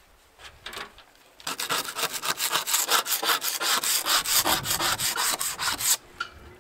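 Flaking paint being scraped off a boat hull by hand: quick back-and-forth strokes, about five a second. The strokes start about a second and a half in and stop suddenly near the end.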